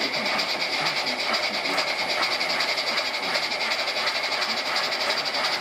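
Regner live-steam G-scale model of the Harz 2-10-2T 99 222 running on a roller stand, its wheels spinning in place. Rapid, even exhaust chuffs over a steady steam hiss.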